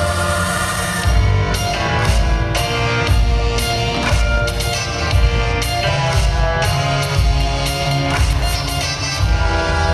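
Music with heavy bass, a drum beat and guitar.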